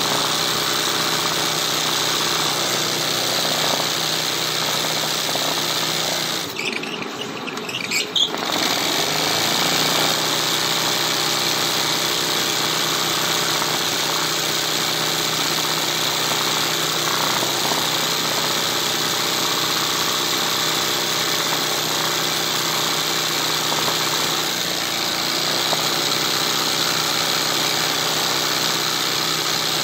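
Sewing machine stitching hand-guided free-motion embroidery, running continuously at high speed with a steady mechanical drone. The sound thins and dips briefly about seven seconds in, then carries on steadily.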